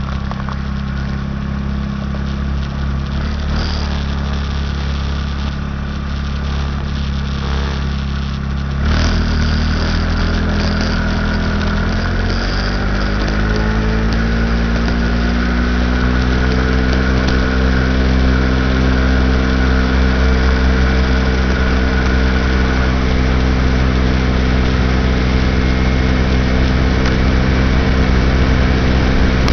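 A 2006 Baja SC50 50 cc moped engine idles steadily. About nine seconds in it is throttled up and pulls away, its pitch rising for several seconds before holding steady at cruising speed.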